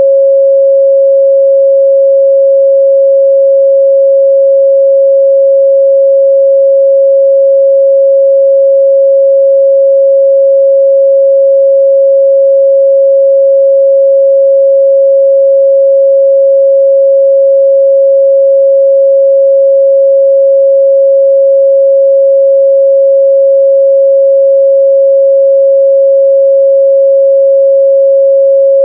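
A pure 547 Hz sine-wave test tone, held steady at one pitch and loud, with nothing else, used to check how speakers or headphones reproduce the midrange.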